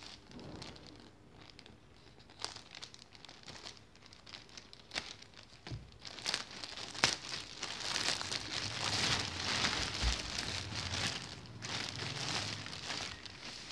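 Plastic courier mailer bag crinkling and being torn open by hand; sparse rustles at first, becoming louder and denser from about six seconds in.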